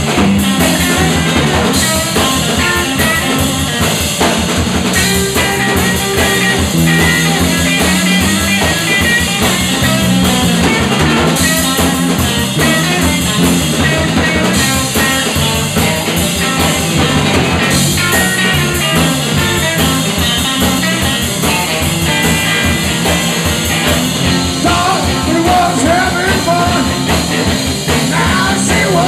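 Live blues band playing: electric guitar on a Fender Stratocaster, electric bass and a drum kit keeping a steady driving beat.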